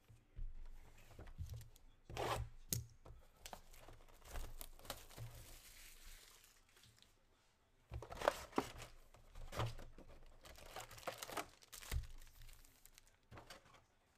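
A cardboard trading-card hobby box (2023 Panini Phoenix football) being torn open and its foil-wrapped packs pulled out and stacked. Irregular bursts of tearing and crinkling, busiest about two seconds in and again from about eight to twelve seconds.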